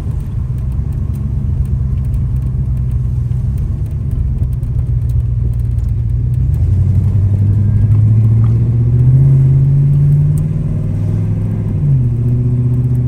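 Holden VK Commodore's V8 engine pulling on the road, its note climbing slowly as it gathers revs, then dropping suddenly near the end.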